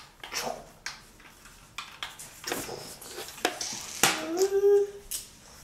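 Scattered clicks and knocks of a plastic toy and its cardboard box being handled during unboxing.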